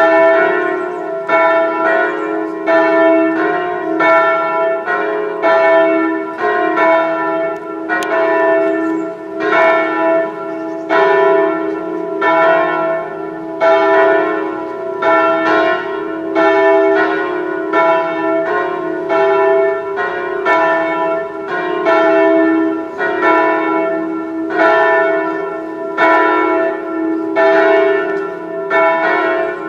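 Church bells ringing for a funeral: a steady run of strikes, about one to two a second, with several pitches ringing on and overlapping.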